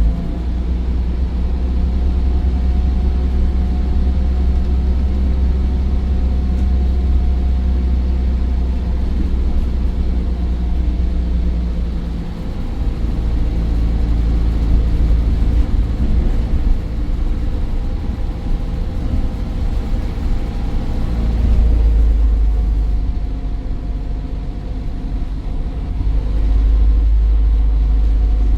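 Optare Versa bus's Daimler OM934 5.1-litre diesel engine running under way with a deep rumble, a thin turbo whine sounding above it. The engine eases off about twelve seconds in and again a little before the end, then pulls harder.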